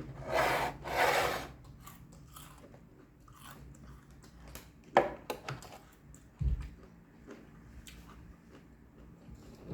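A loud crunchy bite into crispy fried chicken, followed by quieter chewing and small mouth clicks, with one sharp click about five seconds in and a low thump a second and a half later.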